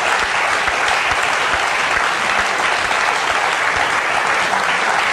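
Studio audience applauding: steady, dense clapping from many hands.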